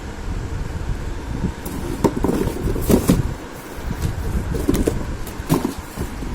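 Irregular rustles and light knocks of a fan's packaging being handled, over a steady low rumble.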